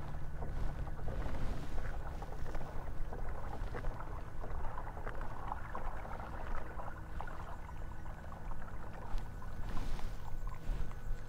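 A Hobie Mirage Lynx pedal kayak moving forward under its pedal drive: water running along the hull, with many light clicks and creaks from the drive and the boat.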